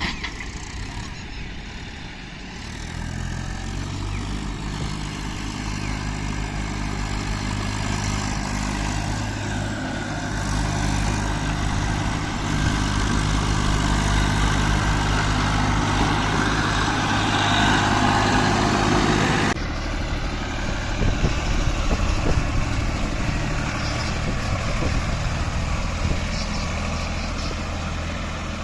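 Heavy diesel engine running under load, a steady drone that grows louder towards the middle. About two-thirds of the way through it changes abruptly to another engine running a little more quietly.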